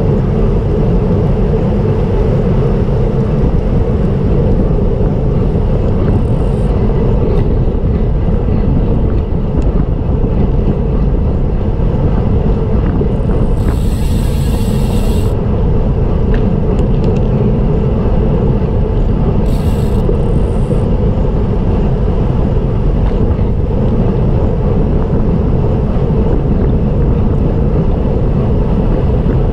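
Wind and road noise on a bicycle-mounted action camera while riding: a loud, steady rush, with two brief high hissing bursts about halfway through.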